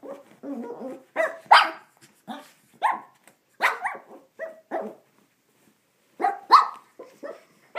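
A Shih Tzu barking angrily at its bath towel: a string of short, sharp barks, pausing briefly about five seconds in before a few more.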